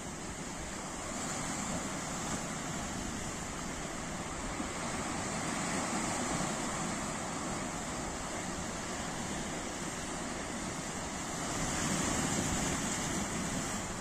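Sea surf breaking and washing over rocks and pebbles on a rocky shore. It is a steady rushing wash that swells a little about halfway through and again near the end.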